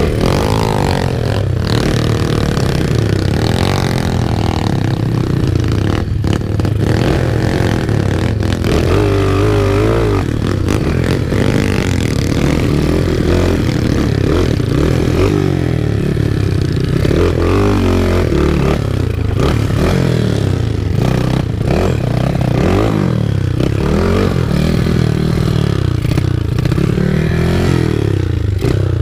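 Dirt bike engine revving up and down repeatedly, its pitch rising and falling every few seconds over a steady low drone.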